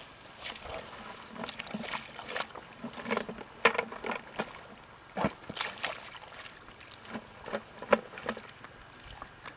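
Irregular splashes and swishes of a person wading through shallow water and wet weeds, with two louder splashes, one about four seconds in and one about eight seconds in.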